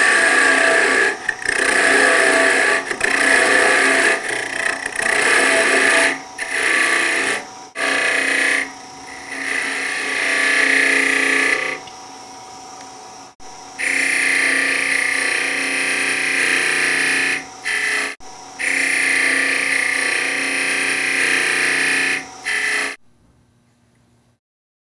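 Small wood lathe running while a hand-held turning tool cuts the spinning miniature workpiece: a scraping, shaving noise in bursts of a few seconds with short pauses, over the steady hum of the lathe. Everything stops about 23 seconds in.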